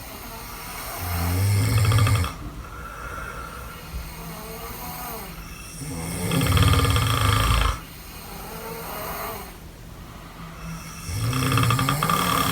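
Two sleepers snoring heavily. Three loud snores come about five seconds apart, with quieter snoring between them.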